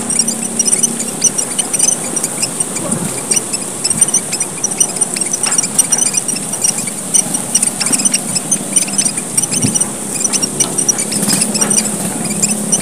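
A flock of small red finches (emprit merah papua) calling busily, with many quick, overlapping high-pitched chirps and twitters in the frantic 'gocar' style used as a lure call.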